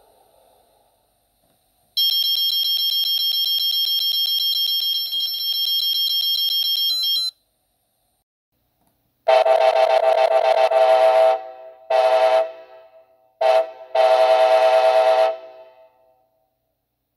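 HO-scale Bachmann ALC-42 model locomotive's sound decoder playing through its small onboard speaker: a steady ringing tone for about five seconds, then, after a pause, four horn blasts in a long, long, short, long pattern like a grade-crossing signal.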